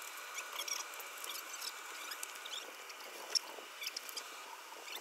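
Faint high-pitched chirps and squeaks with scattered light clicks, and one sharper tick about three and a half seconds in.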